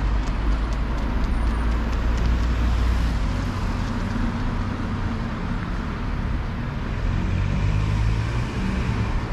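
Road traffic noise, with a motor vehicle's engine running and its low hum shifting in pitch.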